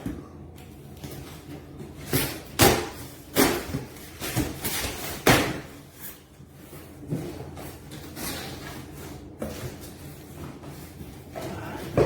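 Parts being pulled out of a cardboard shipping box: a string of knocks, scrapes and rustles of cardboard and packing, busiest in the first half, with a few more knocks later.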